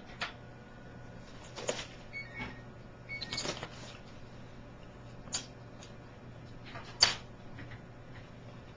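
A steady low hum with a few scattered sharp clicks and knocks, about five in all, the loudest about seven seconds in.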